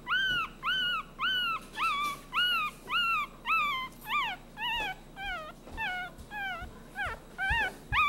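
Five-day-old Maltipoo puppies crying: a steady run of high, thin squeals, about two a second, each rising then falling in pitch, with the later cries sliding further down. It is the typical distress cry of newborn puppies.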